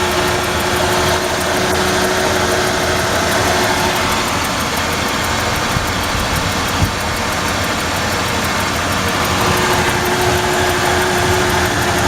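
1994 Ford F-150's 4.9L inline-six idling steadily, its misfire cured by replacing a bad spark plug, with a regular ticking still audible that the owner thinks is ignition-related but can't trace.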